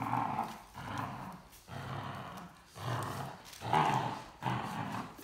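Great Dane growling in play during tug of war over a plush toy: about seven short growls in a row, one every half second to second.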